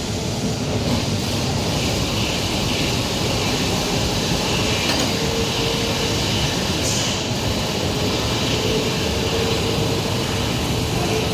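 Stone-cutting bridge saw running, a continuous steady machine noise with a faint tone that comes and goes.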